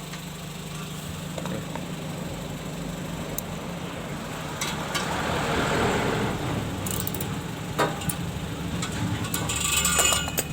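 Vehicle engine idling steadily, with a fitted turbo whistle exhaust attachment that is not whistling, which the owner takes to be broken. Several sharp clicks and knocks of handling come in the second half, loudest near the end.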